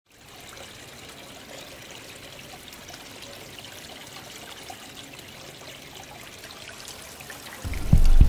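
A steady, quiet trickle of running water with small scattered ticks. Near the end, music with a heavy bass beat comes in, much louder.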